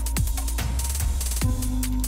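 Background electronic music with a steady bass and a kick-drum beat about twice a second.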